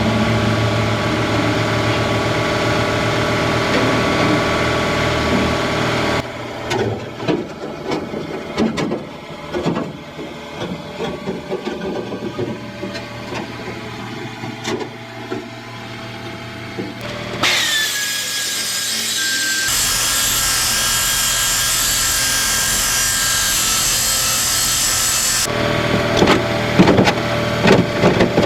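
Shop power tools working sheet steel, in several abrupt stretches. First a steady motor hum, then a stretch of clatter and knocks. About two-thirds of the way through comes a loud, harsh cutting hiss whose tone drops sharply as it starts, and near the end the motor hum returns with sharp knocks.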